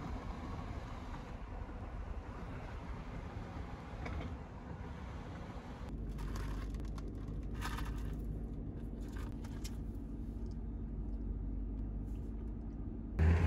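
Low rumble of a car driving, heard from inside the cabin. About six seconds in it gives way to a steadier low hum of the stationary car, with a few short rustles and light knocks as drink cups and napkins are handled.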